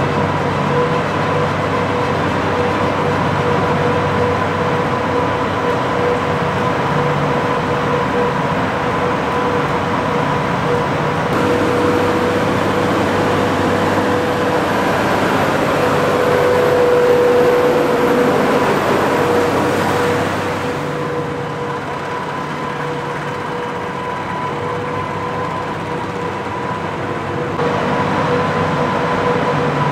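Tractor and large feed mixer wagon running as it unloads feed: a steady mechanical drone with a constant whine. It drops quieter for several seconds past the middle, then comes back up near the end.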